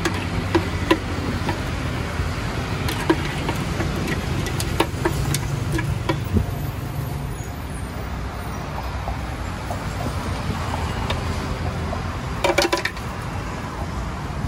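Steady rumble of road traffic, with scattered clicks and knocks of a spoon against a plastic blender jar as slushy smoothie is scooped out. A short cluster of knocks comes near the end.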